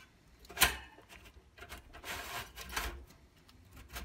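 Metal clicks and rattles from a Dualit toaster's heating-element cluster and wire frame being worked loose by hand, with one sharp knock just over half a second in.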